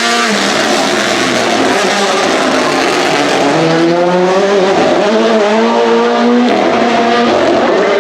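Rally car engine accelerating hard, its pitch climbing with the revs, dropping sharply at a gear change about six and a half seconds in, then climbing again.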